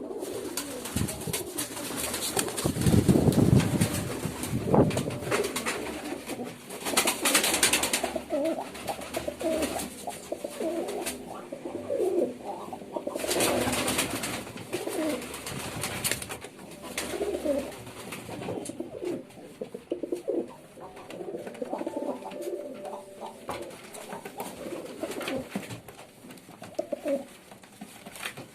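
Domestic pigeons cooing over and over, several birds' calls overlapping in a loft, with a loud low rustle a few seconds in and short hissing rushes about seven and thirteen seconds in.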